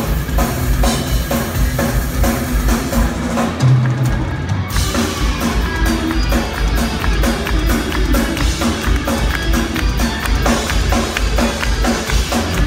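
Live heavy metal played on amplified cellos over a rock drum kit, heard from the audience. The drums break briefly about four seconds in, then come back with fast, dense bass-drum and cymbal playing under the cellos.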